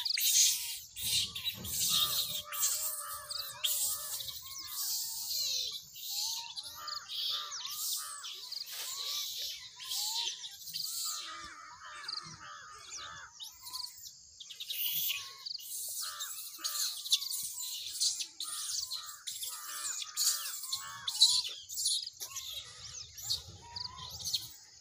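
A chorus of many birds chirping and calling over one another, dense quick high chirps mixed with short rising-and-falling call notes.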